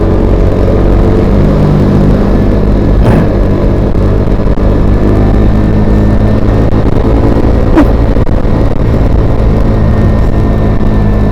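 A motor vehicle engine running at a steady speed, with two short sharp clicks, about three and about eight seconds in.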